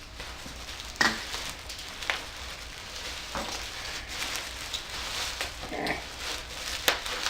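Handling noise from an antique rifle being turned over in its packing: steady rustling with a few sharp knocks of wood and metal, about four in all. A short voiced sound comes near the end.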